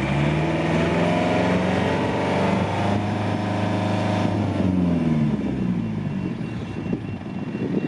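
Boat's turbo diesel engine revved up, held at higher revs for a few seconds, then brought back down to idle about five seconds in.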